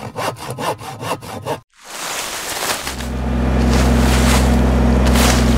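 Pole saw cutting through a tree limb in quick back-and-forth strokes, about four a second. After a brief break a compact Kubota tractor's diesel engine starts running steadily and becomes the loudest sound.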